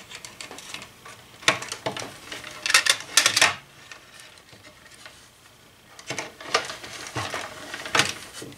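Clicks and light clatter of hands handling a small ring amplifier box and the cords around it: a few knocks, a quick cluster a little under three seconds in, then more scattered knocks near the end.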